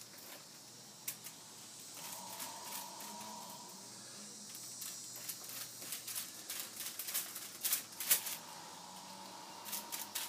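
Aluminum foil crinkling and rustling as a rack of sauced ribs is handled and wrapped on it: scattered short crackles, busiest toward the end.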